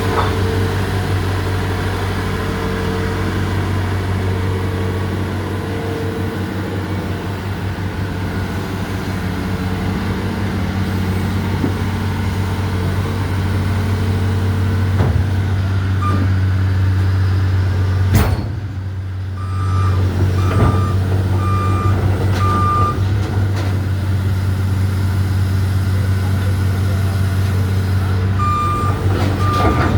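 Excavator's diesel engine running steadily, with a travel alarm beeping about once a second in the second half and a sharp knock just past the middle.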